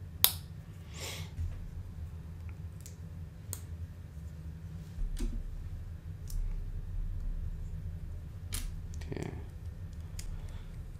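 Lego pieces clicking as they are handled and snapped together: one sharp click about a quarter second in, then scattered lighter clicks every second or two, over a low steady hum.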